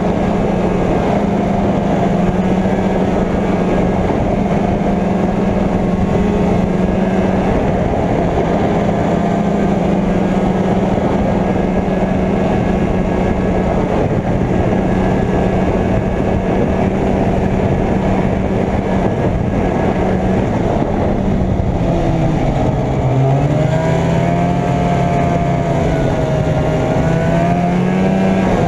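Arctic Cat Jag 440 snowmobile's two-stroke engine running steadily under throttle. About three-quarters of the way through its pitch drops as it eases off, then climbs back up.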